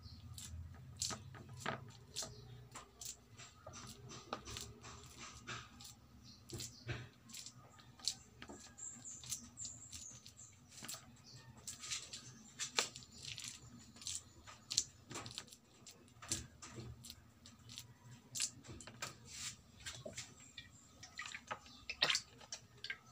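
Plastic rice paddle working sticky cooked glutinous rice in a metal tray, giving irregular soft taps and scrapes about once or twice a second.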